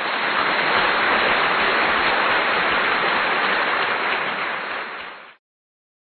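Dense, steady crowd applause with no distinct cheers or voices. It fades out and stops about five seconds in.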